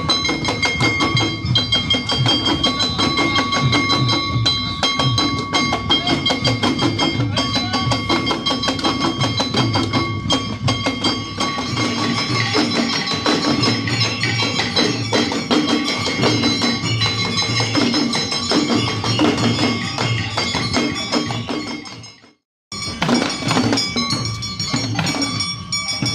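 Oeshiki festival percussion: rapid, continuous beating of hand-held fan drums (uchiwa daiko) with metal gongs ringing over it. It cuts out for a moment near the end and comes straight back.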